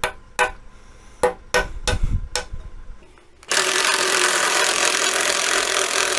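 A hammer strikes a nail used as a punch on the bumper's steel support, about seven quick metallic knocks. About three and a half seconds in, a cordless drill starts and runs steadily, working into the steel.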